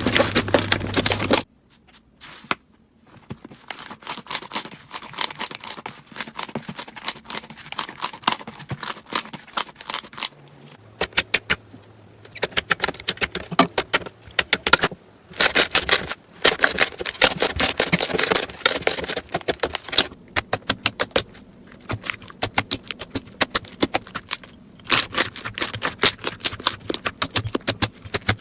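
Crunchy slime being squeezed and pressed by hand, giving rapid crackling and popping clicks, in several short takes that change abruptly every few seconds.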